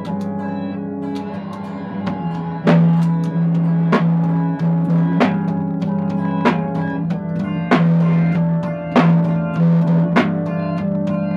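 Live band music: a guitar holding sustained notes, with a drum kit coming in about two and a half seconds in. The drums keep a steady beat of snare and bass drum, with a strong accent about every second and a quarter and lighter strokes between.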